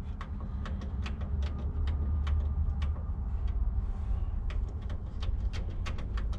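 Walking footsteps: a run of light, sharp clicks about four a second, irregularly spaced, over a steady low hum.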